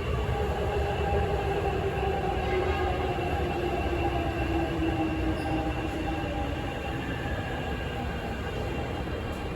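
Beijing Subway Line 15 train pulling into the station: a steady rumble with a motor whine that falls slowly in pitch as the train slows.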